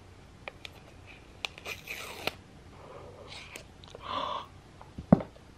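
Cardboard iPhone 14 Pro Max box being opened by hand: quiet rustling and scraping of the paper seal and lid as it slides off, with small clicks and taps. A short breathy gasp comes about four seconds in.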